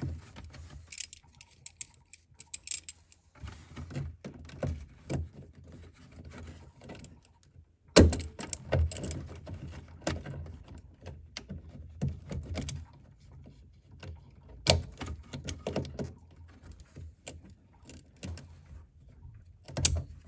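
Scattered metallic clicks, clinks and knocks as locking pliers grip and work a hose clamp on a coolant reservoir hose; the loudest sharp clack comes about eight seconds in, with others about fifteen seconds in and near the end.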